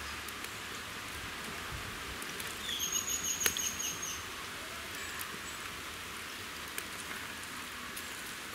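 Outdoor ambience with a steady hiss. A few light clicks of a steel spoon against steel containers, and a brief cluster of high-pitched chirps with a sharper click about three seconds in.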